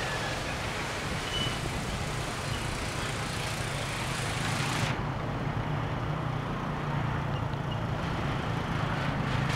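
A motorbike's engine running steadily under way through street traffic, under a steady hiss that cuts off abruptly in the highs about five seconds in.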